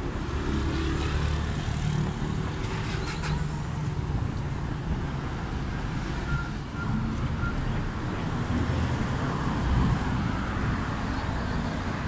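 City street traffic: buses and cars running past in a steady low rumble, growing louder about six seconds in, when a brief high-pitched squeal sounds over it.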